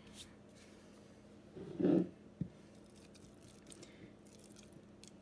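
Silicone spatula stirring thick, bubbly sourdough starter in a glass mason jar: faint sticky squishing and scraping. A short dull thud about two seconds in, then a single click.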